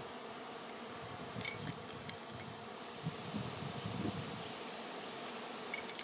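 Honey bee swarm in flight, a steady buzzing hum from many bees circling around the swarm cluster hanging on a tree branch.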